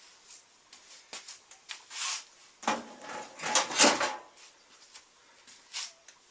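Handling noise while working on a microwave oven's parts: scattered light clicks, with a couple of louder scraping, rattling bursts in the middle.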